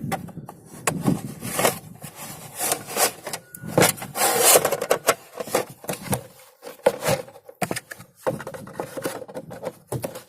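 A plastic emergency warning triangle being handled and slotted into its case: irregular plastic clicks and knocks with scraping and rubbing, busiest about four to five seconds in.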